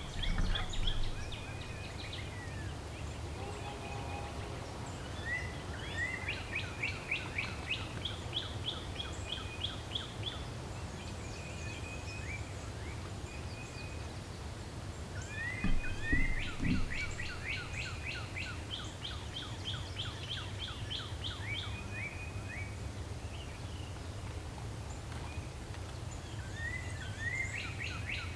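Several songbirds singing, with repeated trills and rising chirps, over a steady low rumble of background noise. A few dull low thumps about halfway through.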